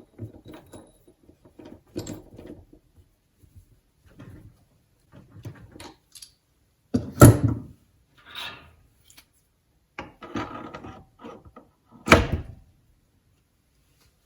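Metal workpiece and tools being handled at a mini lathe as a piece is set up for a facing cut: scattered clunks and knocks with handling noise between them. The two loudest knocks come about seven and about twelve seconds in.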